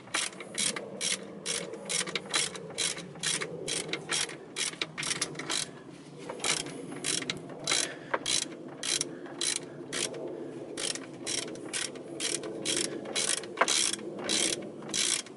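Hand ratchet clicking in a steady rhythm, about two to three clicks a second with a couple of short breaks, as its handle is swung back and forth to undo a throttle body mounting bolt.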